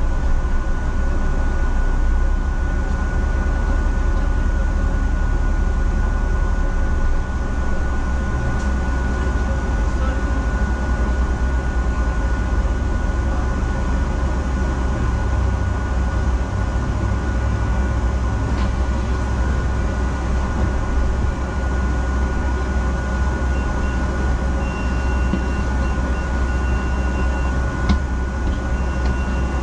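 Double-decker bus in motion, heard from inside on the upper deck: a steady low engine and road rumble with a constant thin whine running over it.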